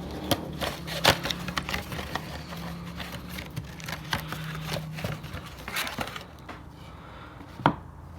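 Hands handling a car oil filter and its housing while swapping in the new filter: irregular small clicks, taps and rustling, with one sharper click near the end.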